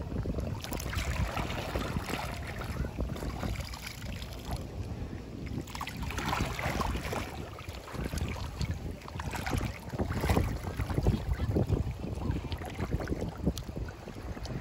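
Shallow water splashing and sloshing as a person lying in it moves her legs, with wind rumbling on the microphone.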